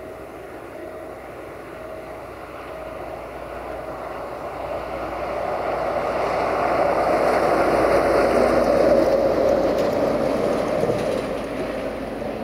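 A DB Cargo BR232 'Ludmilla' diesel locomotive with its freight train approaches and passes close by; the engine and rolling noise swell to a peak about two-thirds of the way in, then fade. A short repeating beep sounds about every half second in the first few seconds.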